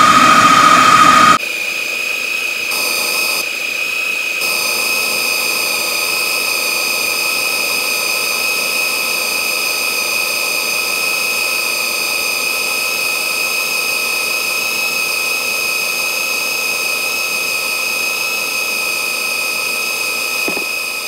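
Countertop blender running at full power, grinding raw bakso (meatball) mixture of meat, egg white and tapioca flour into a smooth paste. A steady high whine with a hiss; about a second in its note shifts and drops a little in level, then holds steady.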